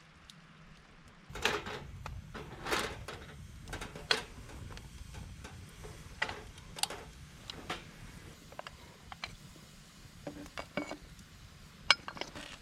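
Camp cookware and utensils being handled: a series of separate clinks and knocks, a few louder ones early and a sharp one near the end.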